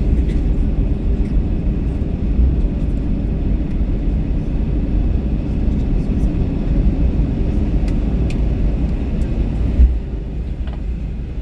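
Airbus A321 cabin noise after touchdown: a steady low rumble of the engines and the wheels rolling, with a faint steady hum and small rattles. Near the end a single bump is heard, and the rumble then drops a little quieter.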